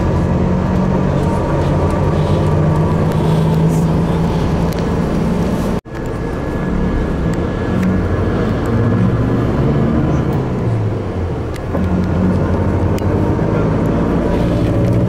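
Steady engine and road noise of a moving road vehicle heard from inside the cabin, cutting out abruptly for a moment about six seconds in.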